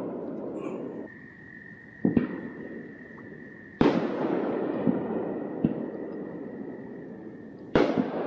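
Three sudden loud bangs, each fading away over a second or more, over a steady background noise and a thin, steady high tone.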